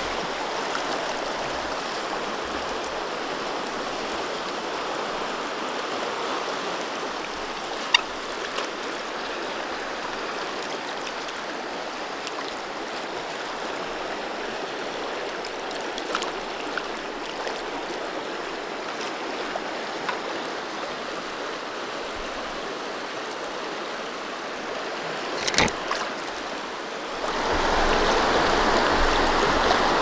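Steady rushing of a strong river current, the Upper Sacramento running high after rain. There are a few sharp clicks about 8 seconds in and again near 26 seconds, and the rushing grows louder and fuller about 27 seconds in.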